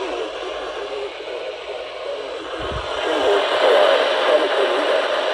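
Radio broadcast audio from a monitored station, thin and tinny like a voice coming through a receiver, with a brief low thump about halfway through.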